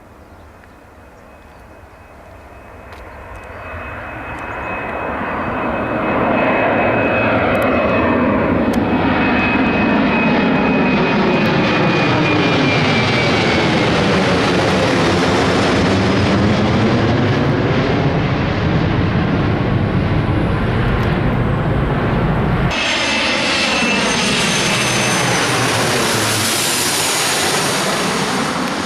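Jet airliner passing close, its engine noise building over a few seconds and then holding loud, with a high whine that falls slightly in pitch. The sound changes abruptly near the end.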